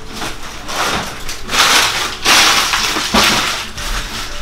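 Thin plastic packaging crinkling and rustling as it is handled, loudest through the middle.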